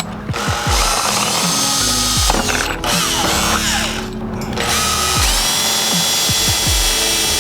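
Background music with deep bass notes that slide downward in pitch every second or two, over steady held tones and rising sweeps.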